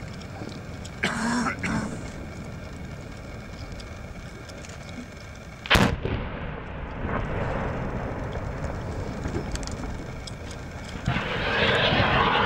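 Explosive detonation in a minefield being breached with a MICLIC mine-clearing line charge: one sharp blast about six seconds in, followed by a low rumble. A loud rushing noise builds near the end.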